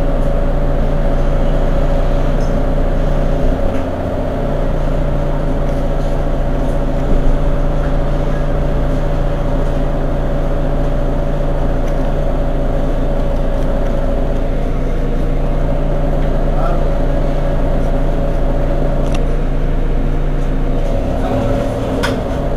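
Mercedes-Benz Citaro G C2 articulated bus idling at a standstill: a steady engine hum with a steady whine over it, the hum dipping briefly about four seconds in.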